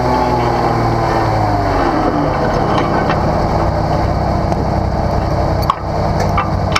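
Off-road rock-crawler engine with its revs falling over about two seconds, then running steadily at low revs. A couple of sharp clicks near the end.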